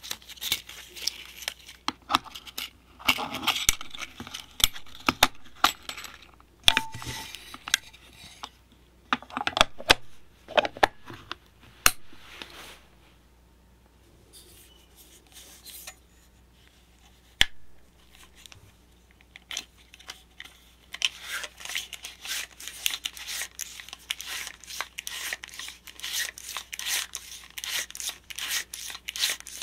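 ELMO 8-V clockwork 8mm cine camera being handled while a film spool is fitted, with scattered clicks and knocks. About 21 seconds in, its spring motor is wound with the side crank, a fast run of ratchet clicks.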